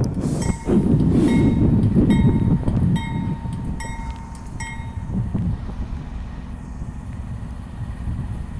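Norfolk Southern diesel freight locomotives rumbling as they approach, with a bell dinging in a steady rhythm, roughly once every two-thirds of a second, until about five seconds in. The rumble eases after about three seconds.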